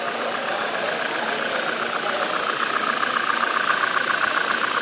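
Model freight train running past on the layout: a steady whirring rattle of wheels and motor on the track that grows louder about halfway through as the cars go by.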